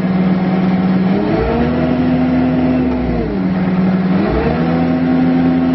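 Bobcat T650 tracked skid steer's diesel engine running, its throttle raised twice so the engine speeds up, holds, and drops back toward idle.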